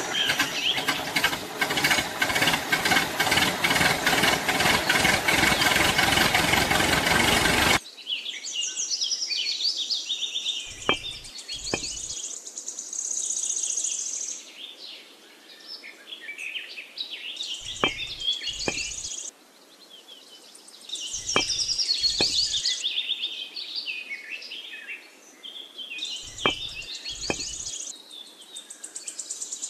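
A loud, dense stretch of sound, which cuts off abruptly about eight seconds in. Then birds chirping continuously, with short light knocks in pairs every few seconds as plastic toy parts and clay bales are handled.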